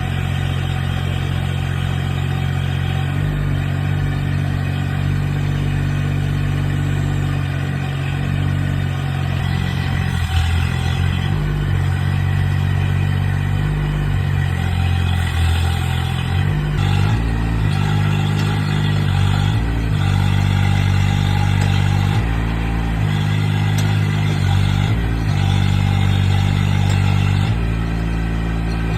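Mini excavator's Kubota D902 three-cylinder diesel engine running steadily, its note shifting up and down in steps, with a single knock about ten seconds in.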